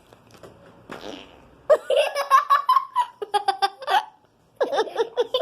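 A short squelching fart noise from slime putty (amoeba) being pressed, about a second in, followed by loud bursts of giggling and laughter.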